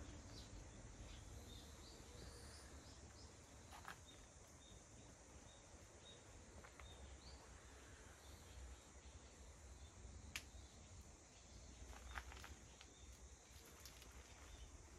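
Quiet garden ambience: a faint high chirp repeated evenly about twice a second, with a few soft clicks scattered through it.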